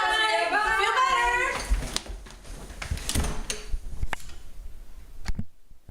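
A voice speaks briefly at the start, then scattered light knocks and clicks follow in a small room.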